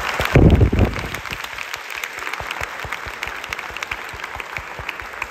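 Audience applauding, many hands clapping steadily in a large hall, with a louder burst close to the microphone about half a second in.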